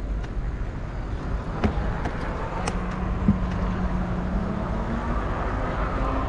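Street noise from a bicycle riding through a city: a steady rumble with a few sharp clicks, and a low steady hum from about two seconds in that rises slightly in pitch near the end.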